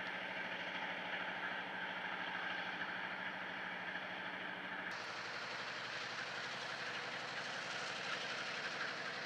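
Diesel freight locomotive engine running steadily while flames shoot from its roof; the sound changes abruptly about five seconds in.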